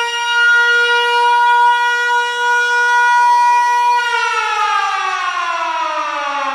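A loud, steady siren-like tone, rich in overtones, that begins a long, smooth downward slide in pitch about four seconds in, like a siren winding down.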